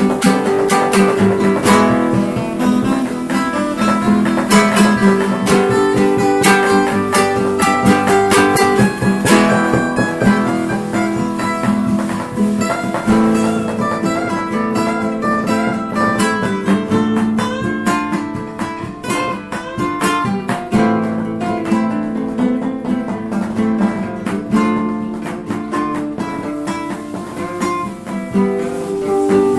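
Instrumental guitar music: guitars picking and strumming a busy run of notes, with no singing.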